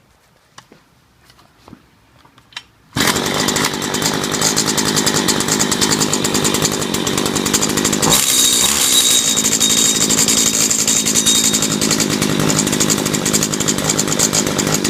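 A few faint clicks, then about three seconds in a Stihl FS85 string trimmer's small two-stroke engine comes in suddenly and runs loudly and steadily, getting a little louder and brighter about eight seconds in. It is running well after a new ignition module and carburetor cured its no-start.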